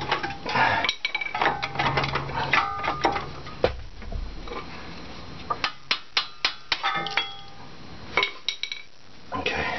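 Metal knocks and clanks as a loosened brake caliper is tapped and worked free of its rotor, including a run of about six quick knocks in the middle, some with a short metallic ring.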